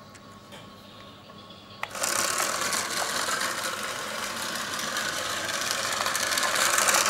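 Remote-control toy buggy's small electric motor and gears whirring as it drives across a tile floor. The whir starts with a click about two seconds in after a quiet stretch, holds steady, and cuts off sharply at the end.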